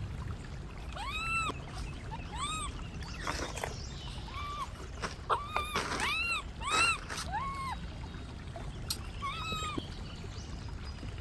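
Young pet monkeys calling: about a dozen short, high-pitched calls, each rising and then falling in pitch, scattered through the span over a low steady hum.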